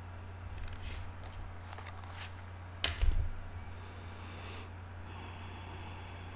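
Oracle cards being handled and swapped in the hand: a few soft rustles and clicks, then a sharp click with a low bump about three seconds in and faint rustling after, over a steady low hum.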